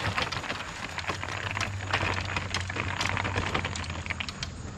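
Folding wagon cart being pulled over rough dirt: a dense crackling rattle of its wheels and frame crunching along the ground, with a low rolling rumble underneath.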